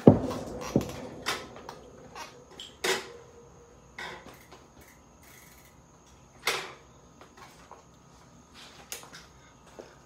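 Knocks and clunks of a bicycle being moved about and set down in a garage. The loudest is a heavy knock right at the start with a short ringing tail, and further knocks come about one, three and six and a half seconds in.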